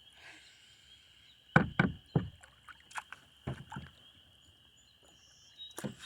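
Kayak paddle knocking against the kayak's hull: three loud knocks close together about a second and a half in, a few softer ones a couple of seconds later, and another near the end.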